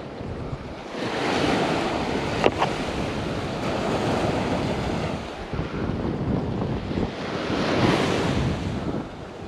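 Small surf breaking and washing up the beach in swells, with wind buffeting the microphone. There is a short sharp click about two and a half seconds in.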